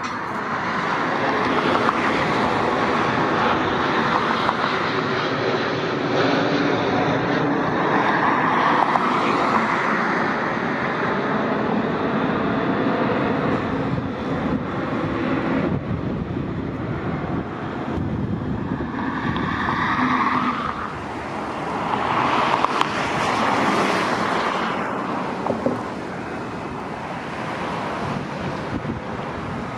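Steady roar of passing vehicles that swells and eases several times.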